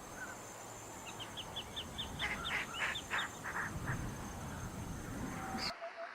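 An animal's chirping calls: a quick run of short high chirps, then a few louder calls, over outdoor background noise. Near the end the sound cuts abruptly to a quieter scene with faint regular ticks.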